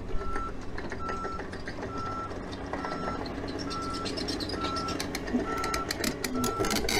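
Heavy-equipment backup alarm beeping about once a second over the steady low rumble of a diesel engine, heard from inside an excavator cab. There are a few sharp metallic clanks near the end.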